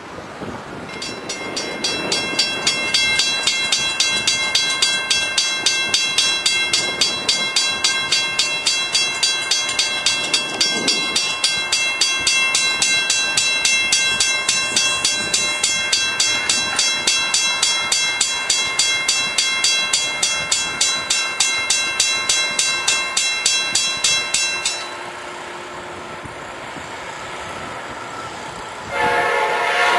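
Railroad grade-crossing bell ringing in a rapid, even ding-ding rhythm, which cuts off abruptly about 25 seconds in. About a second before the end, an approaching Amtrak locomotive's horn starts to blow.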